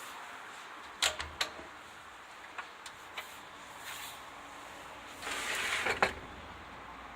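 Amada drill grinding machine being worked: a few sharp metallic clicks and knocks, lighter ticks, then a short rasping scrape of under a second about five seconds in that ends in a knock, over a steady faint background noise.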